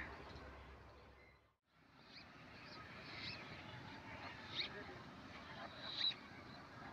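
A passing train's low rumble fades out and stops about a second and a half in. After that come short, high bird chirps, repeated at irregular intervals over a faint outdoor background.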